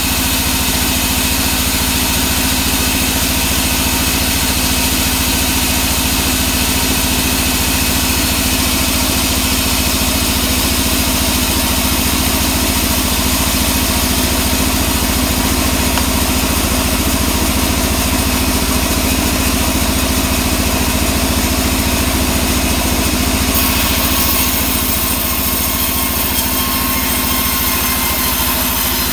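Band sawmill running steadily, a loud even machine hum with a high hiss over it. Near the end the hiss changes as the log is brought up to the blade, the start of a cut through sengon wood.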